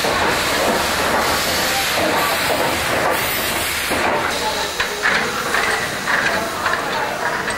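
Steam locomotive hissing steam near its wheels, a loud, steady rush of escaping steam. From about four seconds in the hiss eases and a few short metallic knocks sound over it.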